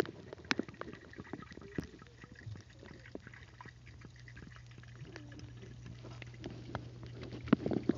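Muffled underwater sound of a swimming pool heard with the microphone submerged: faint clicks and bubbling over a steady low hum. Near the end, splashing rises as the microphone comes back up through the surface.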